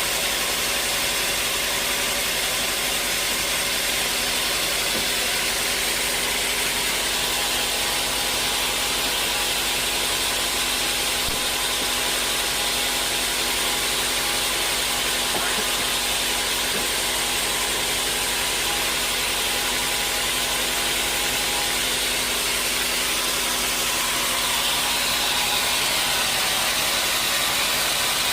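Sawmill running steadily while sawing a large, hard acacia log: a constant hiss of the cut over the hum of the machine, getting a little louder and brighter near the end.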